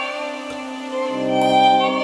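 Violin playing sustained, slow notes. A low synthesizer tone joins underneath about a second in.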